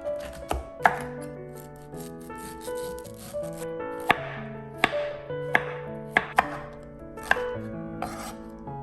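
A knife chopping on a cutting board in about seven separate, uneven strokes, most of them in the second half, over soft background music.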